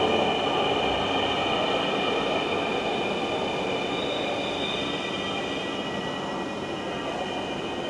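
Dhaka Metro Rail electric train pulling into the platform, with a set of high steady whining tones over its running noise, the whole sound slowly getting quieter as the train slows.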